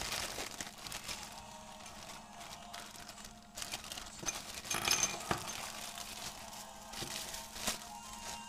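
Clear plastic packaging bag and bubble wrap crinkling and rustling as they are handled and pulled open, with a few sharper crackles about halfway through.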